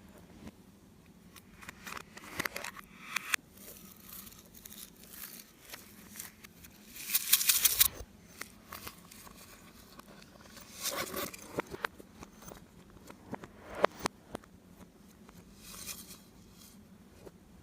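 Slime being handled and mixed by hand, giving sticky crackling and crinkling noises in irregular bursts. The loudest bursts come about seven seconds in.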